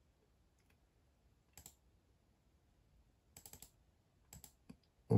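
Faint computer clicks as a value is copied and pasted in programming software: a double click about a second and a half in, a short cluster of clicks around three and a half seconds, and a couple more near the end.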